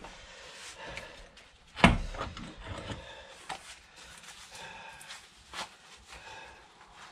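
Workbench handling noise while a new rubber CV boot is worked onto a driveshaft: one heavy knock about two seconds in, then faint knocks and rubbing.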